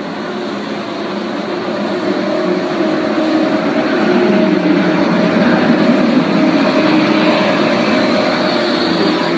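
Frecciarossa ETR 500 high-speed train's E.404 electric power car passing close by at low speed: a steady electric hum with a few held tones over the rumble of the train, growing louder to a peak about four to six seconds in as the power car goes past, then easing slightly.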